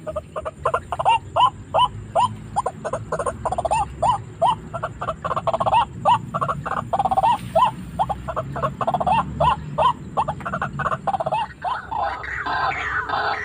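White-breasted waterhen calling: a monotonous series of short, repeated calls, about two to three a second. Near the end, denser and harsher chattering takes over.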